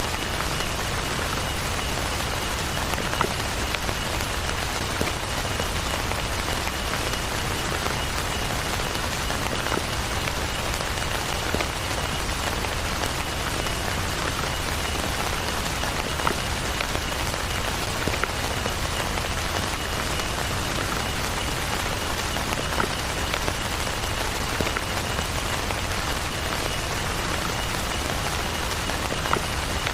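Heavy rain falling steadily, with scattered sharper hits of single drops.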